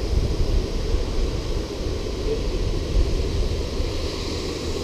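Steady rush of water pouring from a dam's outlet gates, with wind rumbling unevenly on the microphone.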